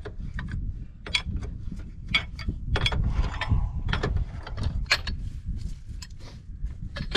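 A wrench clicking and clinking on a hydraulic hose fitting of a Cat 953C track loader as the fitting, just broken loose, is turned off: a string of sharp, irregular clicks over a steady low rumble.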